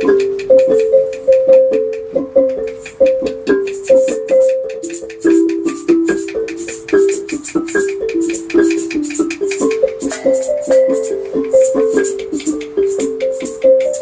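Filipino wooden xylophone struck with two mallets, playing a steady repeating pattern of short, quickly fading low notes, several a second. A quick dry clicking or rattling runs over it.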